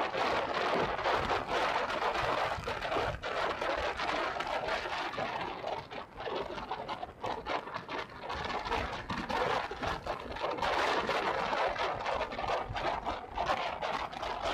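Mountain bike riding over a rough dirt trail: steady tyre noise with many small knocks and rattles from the bike, easing off for a couple of seconds midway.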